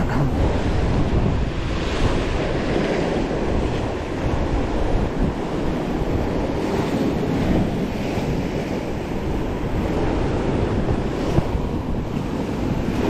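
Sea waves washing against a rocky shore in repeated surges, with wind buffeting the microphone.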